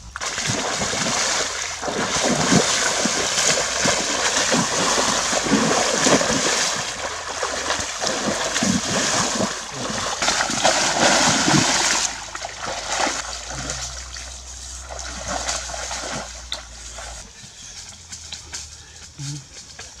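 Heavy splashing and sloshing of a person wading quickly through a shallow muddy pond, starting suddenly and stopping about twelve seconds in. After that come quieter, scattered footfalls.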